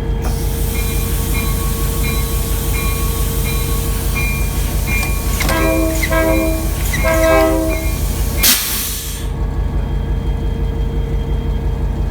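Diesel locomotive bell ringing about twice a second over the idling engine. About halfway through, the air horn sounds two short blasts. A hiss of air runs underneath and ends in a brief burst near the end.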